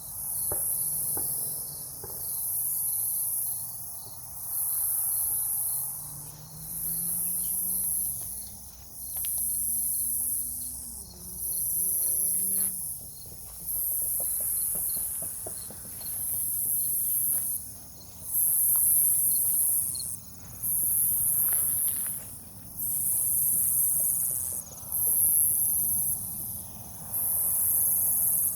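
Night insect chorus: a loud, high buzzing that swells and breaks off in even pulses about every two seconds, over a fainter steady high trill.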